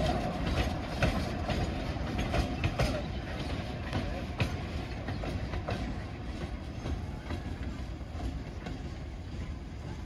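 A train rolling over the track, its wheels clicking irregularly over rail joints with a steady rumble, the sound slowly fading.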